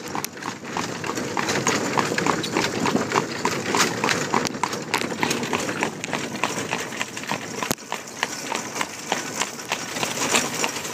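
Horse's hooves clip-clopping on a paved road as it pulls a buggy, a steady rhythm of about four hoofbeats a second.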